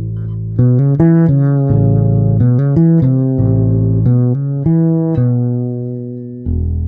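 Fretless electric bass played clean through a LeSuire Avalanche 300-watt all-tube bass head with KT88 power tubes, heard from a LeSuire speaker cabinet. A melodic line of single notes starts about half a second in, and a long note fades before a new one is struck near the end.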